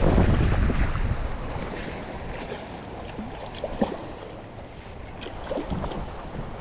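Wind buffeting the microphone, heaviest in the first second or so and then easing off. A few light clicks and a brief hiss about five seconds in.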